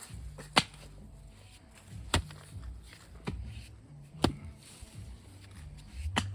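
Four heavy strikes about two seconds apart: a hand digging tool biting into the ground.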